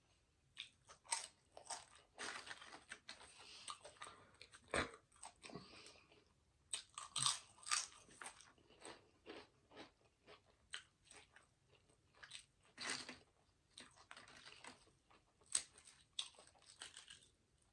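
Close-miked eating: crunchy snack food being bitten and chewed, an irregular run of sharp crunches with short pauses between bites.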